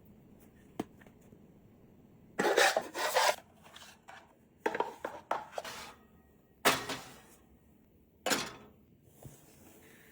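Kitchen utensils and dishes handled: four separate bursts of scraping and clattering after a single small click.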